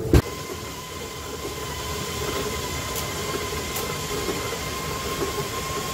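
Rail bike rolling along the track: wheels on steel rails give a steady high whine over a low rumble, with a sharp knock at the very start and a couple of faint clicks.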